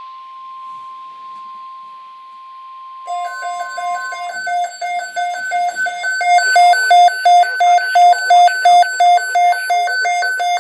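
Weather alert radio sounding a NOAA Weather Radio alert. A steady high warning tone plays over faint static, and about three seconds in the radio's own loud alarm starts beeping about twice a second. The alarm takes over as the steady tone stops about a second later.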